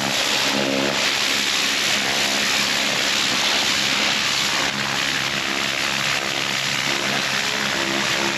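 Stihl RB 400 gas pressure washer running steadily, its engine hum under the loud hiss of high-pressure water spraying on concrete.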